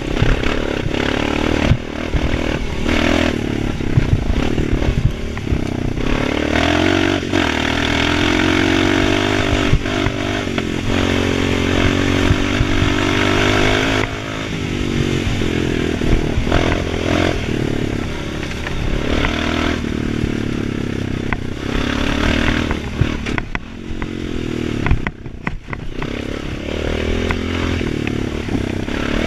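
Single-cylinder engine of a Honda Foreman 500 ATV through its aftermarket HMF exhaust, revving up and dropping back again and again as the throttle is worked on a rough trail. Clatter and knocks from the quad's chassis and body armor come through over the bumps, and the engine eases off briefly near the end.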